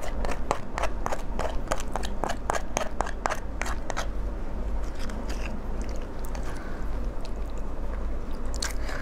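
Close-miked crackling and clicking of a raw marinated crab's shell being pulled apart and picked clean by fingers. The clicks come quickly, about three or four a second, for the first four seconds, then thin out.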